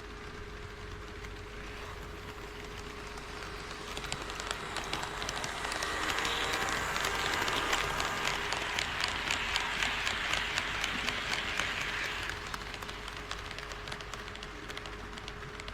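HO scale model train running past on KATO Unitrack, its wheels clicking evenly over the rail joints; the rolling sound grows about four seconds in, is loudest in the middle and fades away near the end.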